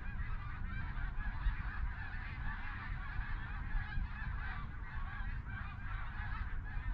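A very large flock of snow geese calling in flight, a continuous chorus of many overlapping honks.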